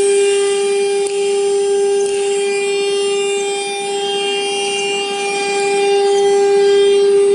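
YIHAI YH-2050 CNC router spindle running at speed with a steady, high whine.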